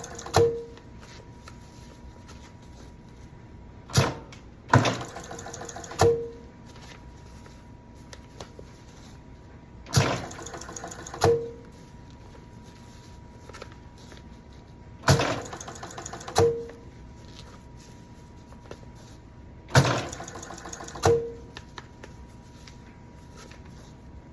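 Drapery pleat tacker sewing tacks into curtain pleats, one tack cycle about every five seconds: a sharp clack, then a brief louder mechanical run about a second later that ends in a short tone, over a faint steady hum.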